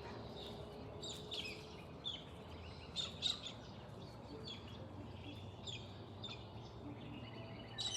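Small birds chirping and calling, a scatter of short, sharp chirps with the loudest pair about three seconds in, over a faint steady outdoor background.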